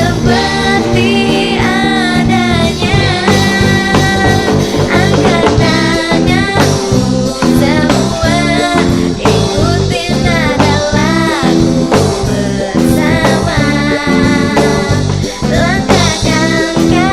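A band playing live with a lead singer: vocals over guitar and a steady drum beat.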